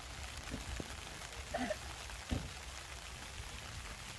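Steady rain pattering, with a few soft knocks, the loudest a little past two seconds in, and a brief call about one and a half seconds in.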